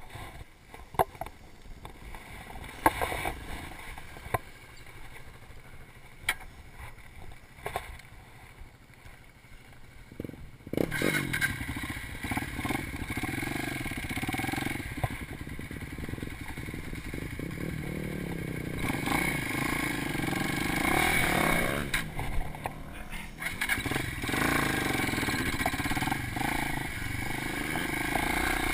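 Scattered knocks and handling noises for about ten seconds, then a dirt bike's engine starts about eleven seconds in and runs, its pitch rising and falling as the bike rides off over the trail.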